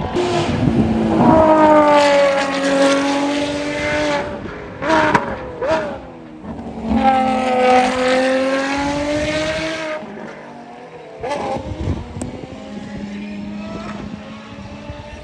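Ferrari XX Programme race cars at high revs on track. Two loud engine passes a few seconds each, the pitch sagging and then climbing again, with short sharp revving blips between them and a quieter steady engine note near the end.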